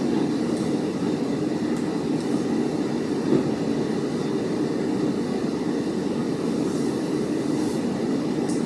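Steady low rumbling room noise, with a few faint clicks.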